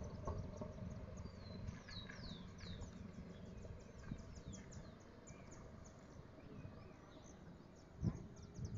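Birds chirping: many short, high calls that slide down in pitch, densest in the first few seconds, over a low rumble, with a bump just before the end.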